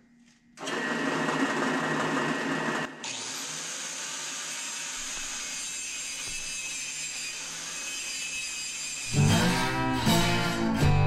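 Angle grinder and drill press running together, the grinder wheel cutting down a bolt spun in the drill press chuck, used as a makeshift lathe. The sound starts suddenly half a second in and drops to a steadier, quieter run about three seconds in. Acoustic guitar music comes in about nine seconds in.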